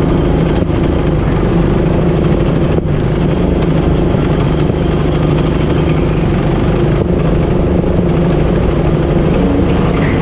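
Go-kart engine running steadily as the kart laps the track, heard from a camera mounted on the kart.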